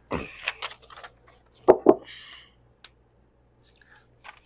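Sheets of paper rustling and clear plastic bins being handled, with two sharp knocks a little under two seconds in.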